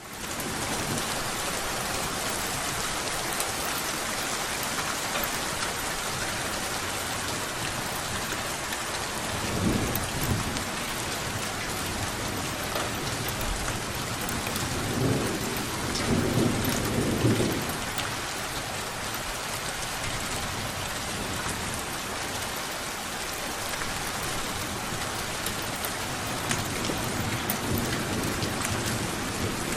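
Steady rain falling, with rumbles of thunder swelling up about ten seconds in and again in the middle.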